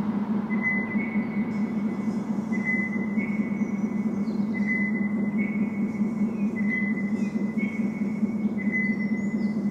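Electronic sine tones from Bluetooth speakers. A steady low drone sits near 200 Hz, and short high beeps near 2 kHz recur about every two seconds in two slightly offset, slightly different pitches. Underneath is a hiss of road traffic.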